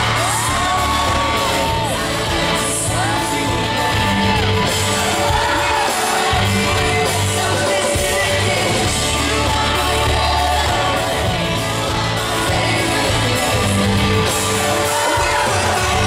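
A live pop-punk band playing loud, with electric guitars, bass and drums under sung vocals, heard from the audience in a large hall. Audience voices shout and sing along over the music.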